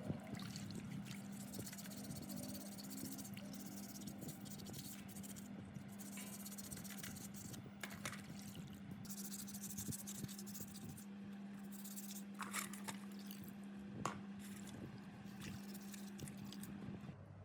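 Scraping with scattered sharp clicks over a steady low hum that stops near the end.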